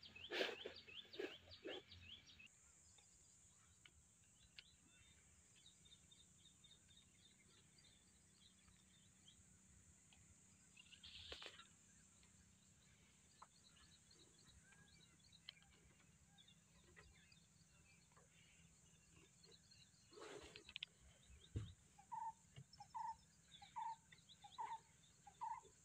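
Near silence: faint outdoor ambience with a steady high hiss and scattered faint bird chirps, after a few brief rustles at the start. Near the end a bird calls about six times, evenly spaced.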